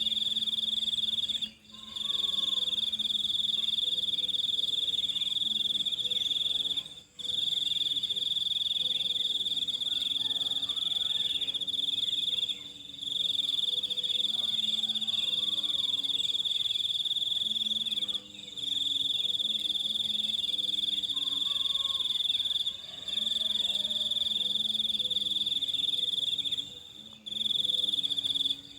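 Crickets trilling: one continuous high-pitched insect chorus, cut off for a moment every five seconds or so before resuming.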